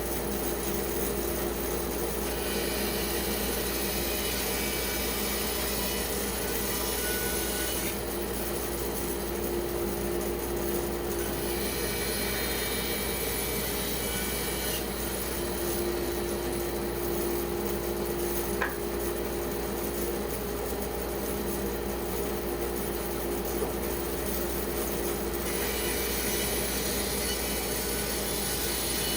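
Band saw cutting a wet spalted pecan log: a steady machine hum under the continuous rasp of the blade in the wood, which turns brighter in a few stretches, with a couple of faint clicks.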